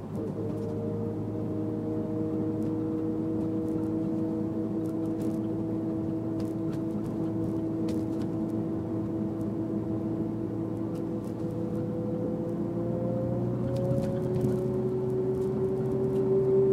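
Honda S2000 driving with a steady whine over the engine and road noise, its pitch climbing slowly and more steeply in the last few seconds as the car gathers speed. The whine comes only on throttle; the owner suspects the differential or the transmission.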